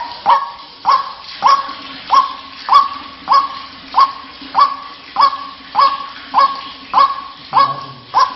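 White-breasted waterhen calling: a long, even series of short, loud notes, about one and a half a second, each sweeping up quickly and then holding briefly.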